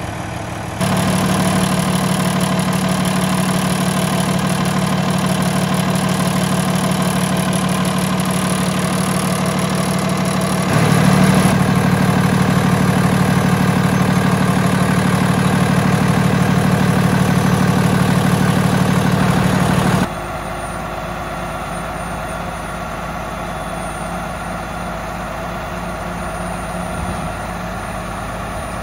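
2013 Freightliner M2 dump truck's 300-horsepower Cummins diesel idling steadily. It gets louder about a second in and a little louder again near the middle, then drops back about two-thirds of the way through.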